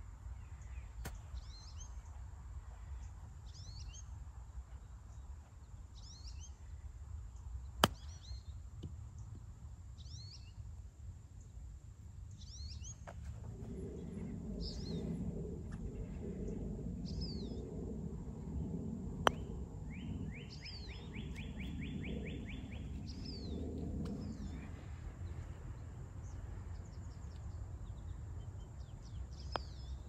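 Birds chirping, a short falling call repeated every second or two, with a brief rapid trill about two-thirds of the way through. A sharp click about 8 s in is a lob wedge striking the ball on a short chip, and a second sharp click about 19 s in is a putter striking the ball. A low rumble rises in the middle and fades out again.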